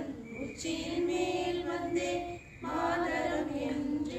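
Women's voices singing unaccompanied in long held notes, with a short break about two and a half seconds in.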